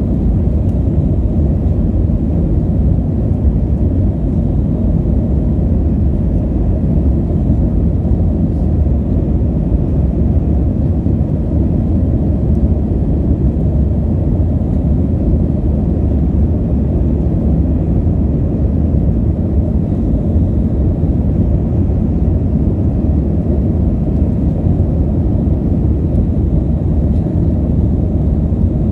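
Airbus A320 in its climb after takeoff, heard from inside the cabin: a steady low rumble of engines and airflow that holds an even level throughout.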